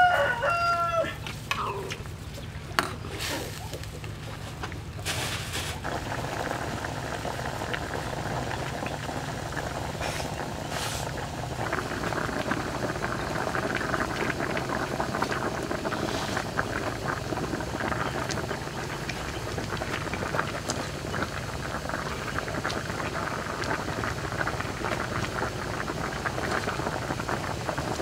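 Broth boiling and bubbling steadily in a wok around a whole chicken over a wood fire, growing louder about six seconds in and again at about twelve. A rooster crows once at the very start, and there are a few sharp knocks early on.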